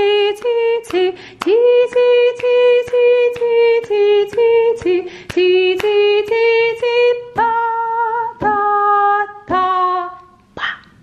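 A woman sings a short children's solfeggio melody unaccompanied, clapping her hands on the paired eighth notes and tapping the desk on the quarter notes, so a sharp clap or tap lands at the start of most notes. The singing and claps stop shortly before the end.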